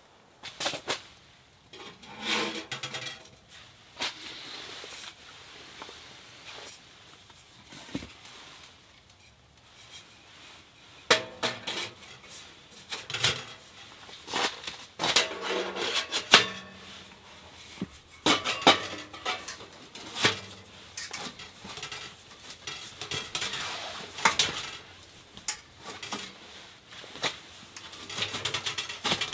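Pots, pans and utensils clinking and clattering in irregular bursts of knocks, some with a short metallic ring.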